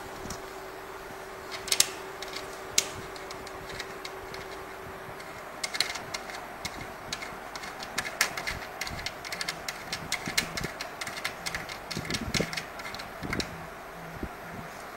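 Irregular clicks and clinks of bolts, nuts and hand tools being handled, coming thickly in the second half. Under them is a steady hum that stops about five seconds in.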